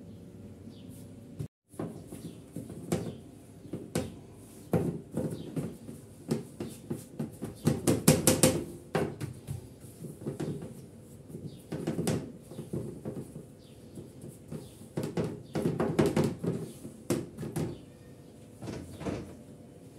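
Metal baking tray knocking and rattling against a stone countertop as pizza dough is pressed and stretched into it by hand. The knocks come irregularly, with two busy stretches of rapid clattering.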